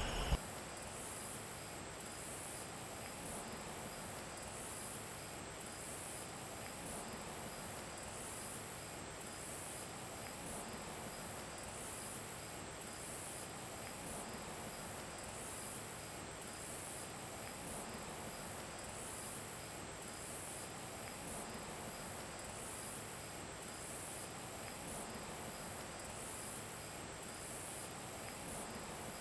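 Steady insect chorus, a high even pulsing chirr over a faint outdoor hiss, with one brief click at the very start.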